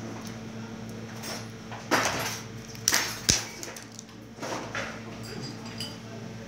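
Kitchen items being handled at a counter: a rustle about two seconds in, two sharp clinks around three seconds, and more rustling a little later, over a steady low electrical hum.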